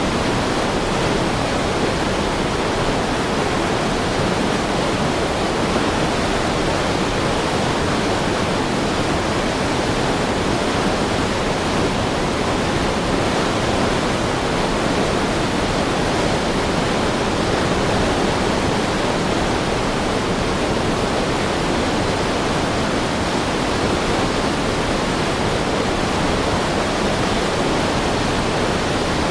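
Fast, heavy river water rushing and churning in a steady, dense roar with no breaks.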